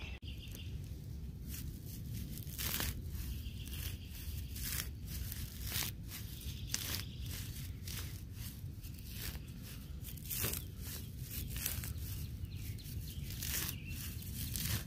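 Hand digger cutting a plug through grassy turf and soil: irregular tearing of grass roots and scraping, crunching strokes.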